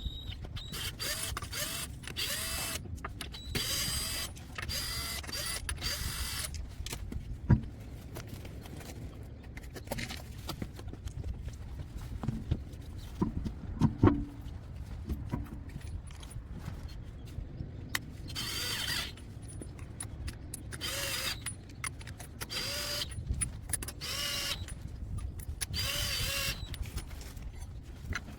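A power tool running car wheel lug nuts in short whirring bursts: about six in quick succession, then, after a long gap, about five more. Two sharp thumps fall in the gap between them.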